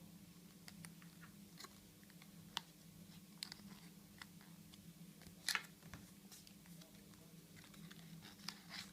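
Faint, scattered clicks and rustles from small objects being handled, the sharpest about halfway through, over a steady low hum.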